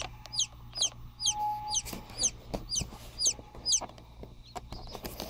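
Newly hatched chicken chicks peeping: a run of high, downward-sliding peeps about two a second, stopping after about four seconds, over a low steady hum.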